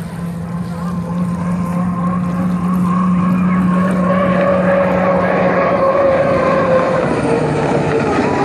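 Racing hydroplane's engine at full speed as the boat approaches and runs past, growing louder over the first few seconds and then holding a loud, steady drone. Its pitch drops slightly near the end as the boat goes by.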